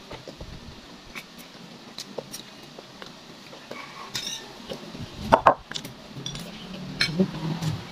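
Metal spoon clinking and scraping against a bowl while eating, in scattered irregular clinks. The loudest knock comes a little past halfway.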